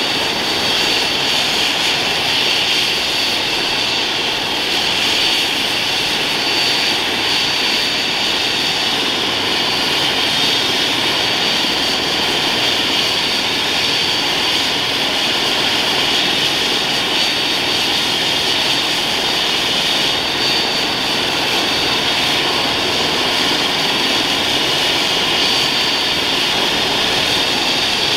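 Airbus H135 helicopter running on the ground with its main rotor turning: a steady turbine whine with a constant high tone over a rushing rotor noise, level throughout.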